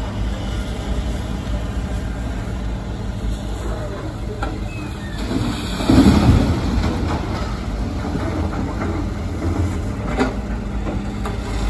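Diesel engines of dump trucks running as they drive past on a dirt haul road, a steady low rumble. A brief louder surge comes about six seconds in, and a short click near the end.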